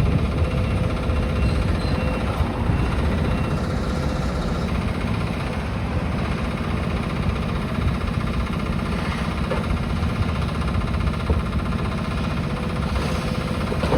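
Demolition excavator's diesel engine running steadily, with a few faint knocks of the machine working on the building late on.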